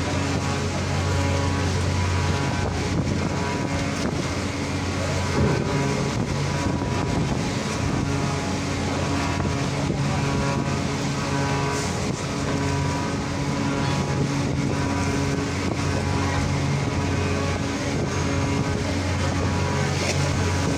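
Ferry engines droning with a steady low hum, with wind noise on the microphone.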